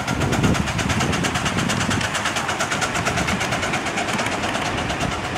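Ride-on miniature railway train passing: a small steam-style locomotive hauling open passenger cars along the track, running with a fast, even rhythmic clatter.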